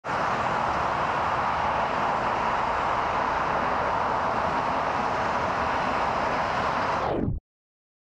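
Steady, even background noise with no distinct calls or knocks; it cuts off abruptly to silence about seven seconds in.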